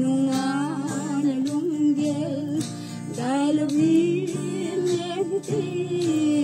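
A woman singing a slow melody to her own strummed acoustic guitar.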